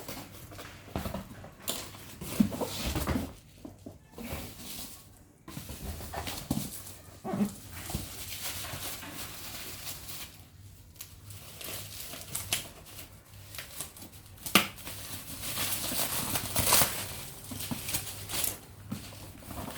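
Cardboard box and packaging being opened and handled by hand: irregular rustling, scraping and tearing, with a sharp click about fourteen seconds in.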